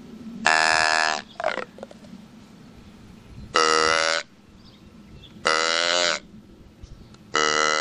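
Hand-blown wooden deer call sounded four times: short, steady-pitched calls under a second each, spaced one to three seconds apart.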